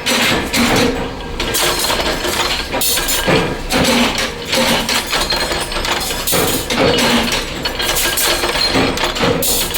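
Metal striking metal again and again: irregular clanks and clinks, about one to two a second, each with a short ring.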